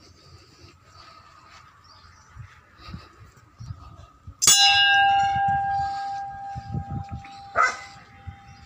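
Hanging temple bell at a shrine entrance struck once, ringing with a clear tone that slowly fades, then struck again more lightly near the end.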